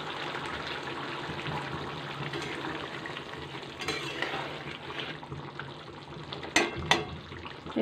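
Rui fish curry simmering and sizzling in an open pan, with two sharp clicks near the end as a spatula hits the pan.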